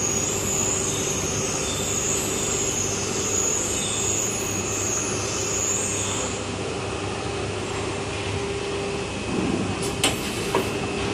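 Chen Hsong injection moulding machine running with the mould closed: a steady hydraulic hum with a high hiss that stops about six seconds in, then two sharp clunks about ten seconds in.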